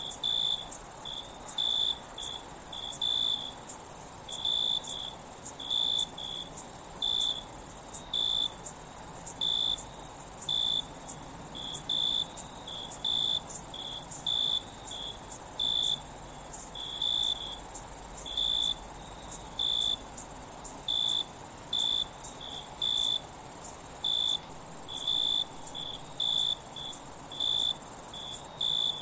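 Night insect chorus of crickets: a steady, very high-pitched trill with a lower, repeated chirp pulsing about once or twice a second over it.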